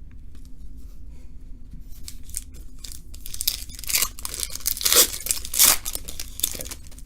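Foil wrapper of a trading-card pack being torn open and crinkled, a series of rustling tears that grows loudest about two-thirds of the way through.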